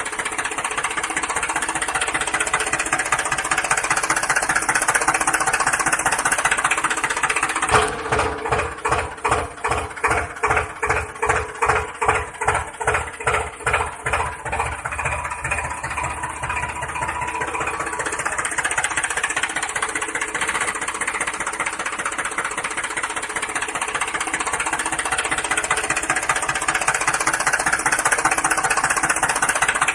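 Tractor engine running steadily, with a stretch in the middle where it pulses slowly and evenly, about twice a second.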